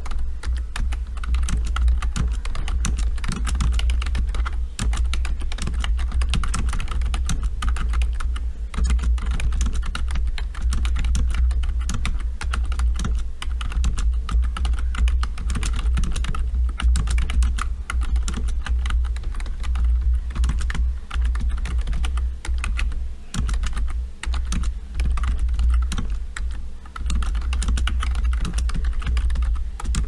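Logitech K230 wireless membrane keyboard being touch-typed fast and without pause, at about 60 words per minute: a dense, quite loud clatter of keystrokes with a low thud under them, easing only for a moment now and then.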